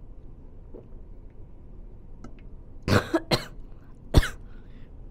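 A woman coughing hard three times in quick succession, about three seconds in, after inhaling pre-workout powder.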